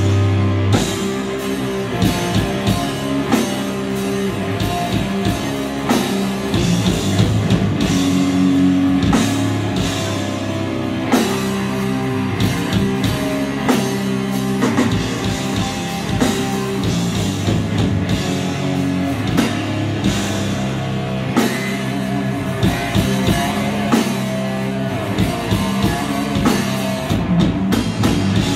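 Live metal band playing at full volume: distorted electric guitars holding heavy chords over a drum kit with crashing cymbals, heard through the room's amplification.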